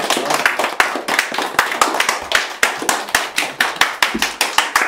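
A small group clapping their hands together in a quick, steady rhythm.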